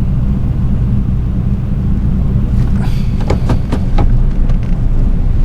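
Steady low rumble of a truck driving, with a quick run of clicks or knocks about three seconds in.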